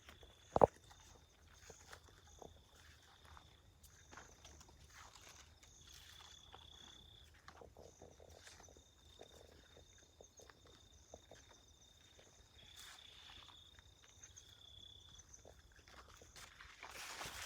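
Faint rustling and footstep-like shuffles over a thin steady high-pitched whine, with one sharp knock about half a second in and a louder rustle near the end.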